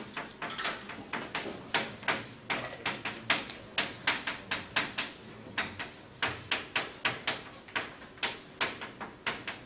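Chalk writing on a blackboard: a quick, uneven run of sharp taps and short strokes, about three or four a second, as characters are written out.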